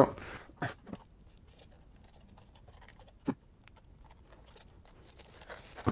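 Scattered small clicks and taps of a Threadripper CPU's plastic carrier and retention clip being squeezed and prised apart by hand, with one sharper click about three seconds in.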